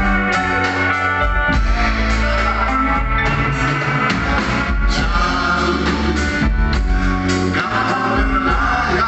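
Live band playing a song, with a singer over guitar, bass and drums.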